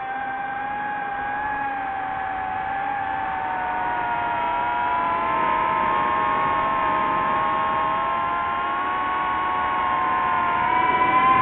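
DJI FPV drone's motors and propellers whining, several close tones drifting up and down in pitch with the throttle, getting louder near the end.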